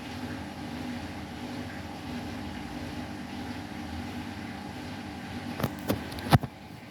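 Washing machine spinning fast on its final spin with two pillows in the drum: a steady motor and drum hum with a held whine. Near the end a few sharp knocks, the last one the loudest.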